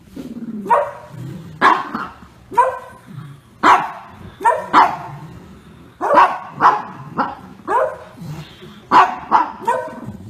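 Small dog, a pug, barking in short single barks, about a dozen, unevenly spaced with gaps of half a second to a second.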